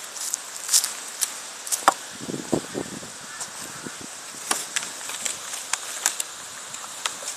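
Footsteps rustling and crunching through dry fallen leaves: irregular sharp crackles, with a cluster of heavier crunches about two seconds in.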